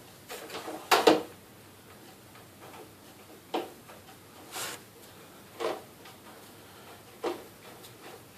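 Scattered clicks and knocks of a power supply unit being handled and fitted into a metal desktop computer case: a quick cluster about a second in, then single knocks every second or two.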